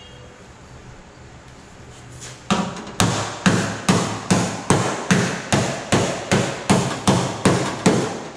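Body hammer striking the steel inner shell of a Chevy Traverse door to straighten its damage: a steady run of sharp metallic blows, about three a second, starting a couple of seconds in.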